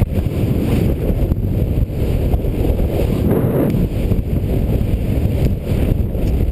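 Loud, steady rush of wind buffeting a skydiver's camera microphone, a dense low rumble with no engine tone.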